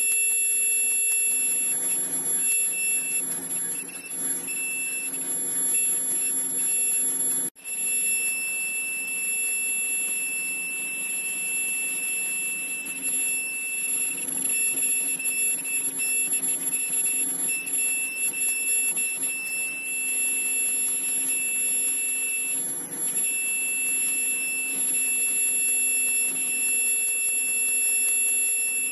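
Automatic N95 mask-making machine running: a steady high-pitched whine over a low hum. The whine breaks up on and off during the first few seconds, then holds steady, and the sound cuts out for an instant about seven and a half seconds in.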